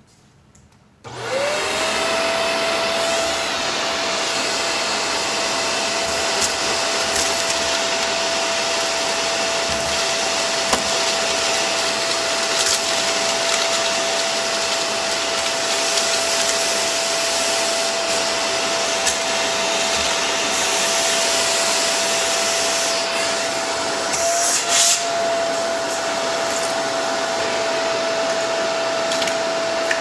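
Vacuum cleaner switched on about a second in, its motor winding up to a steady high whine and running on, with scattered crunches of dirt and grit being sucked up. There is a brief louder rush late on.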